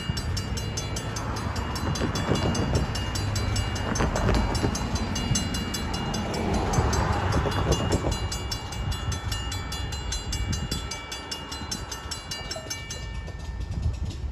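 Safetran mechanical crossing bell ringing in rapid, steady strokes as the crossing warns of an approaching train, stopping near the end as the gates come down. A low rumble runs underneath, swelling briefly about halfway through.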